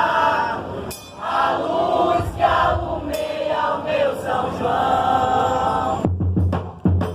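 A group of voices singing together in unison, with crowd noise underneath; about six seconds in, a song with a heavy bass beat starts.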